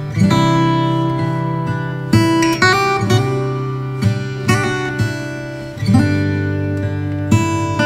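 Background music of strummed acoustic guitar chords, with a new strum every second or two.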